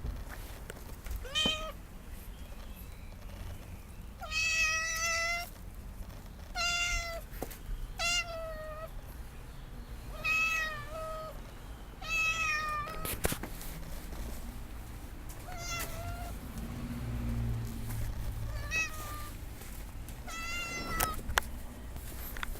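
Stray cat meowing repeatedly: about nine separate meows a second or two apart, some short and one longer, each bending in pitch.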